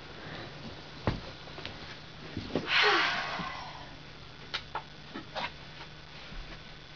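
Knocks, clicks and a short rushing noise about three seconds in, over a low steady hum: movement noise as a light-up hoop starts spinning.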